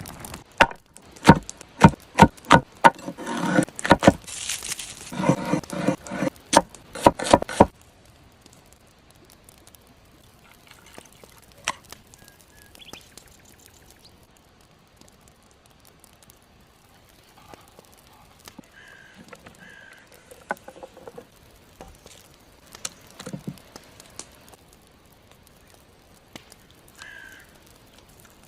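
Knife chopping on a wooden cutting board: a quick run of sharp strokes for about the first eight seconds, then quieter handling with scattered light clicks and knocks.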